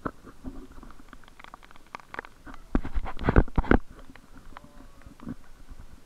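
Footsteps and camera handling noise while walking a wet forest trail: scattered soft knocks and clicks, with a louder patch of rubbing and thumping about three seconds in.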